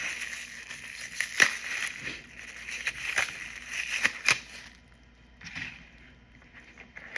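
Takeout food packaging handled close to the microphone: crinkling and rustling with a few sharp clicks, dying down about two-thirds of the way through.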